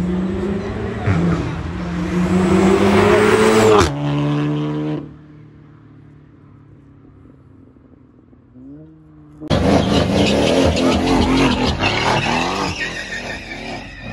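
A car engine revving hard, rising in pitch for about four seconds and then cutting off sharply. A quieter stretch follows with one short rev. About ten seconds in a Mercedes-AMG C63's V8 comes in loud with tyre noise as it spins a donut.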